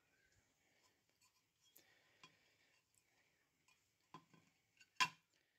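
Quiet handling of a small sheet of float glass being picked up and turned over, with faint light ticks and one sharp clink about five seconds in as the glass is set down on the plastic cutting mat.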